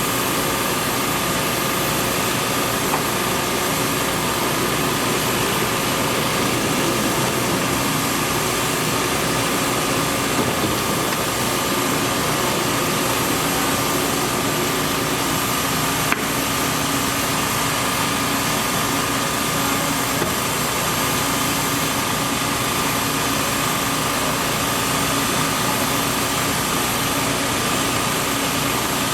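A steady machine-like drone with a constant whine in it, running evenly without a break, with one short click about halfway through.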